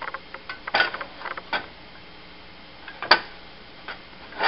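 Scattered small clicks and crackles from a nonstick frying pan heating with a little oil, with a sharper tick about three seconds in.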